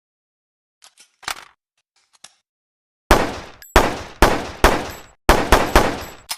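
PPM-9 handgun sound effect: a few light mechanical clicks about a second in, then about eight single shots from about three seconds in, fired in quick succession, each with a short ringing tail.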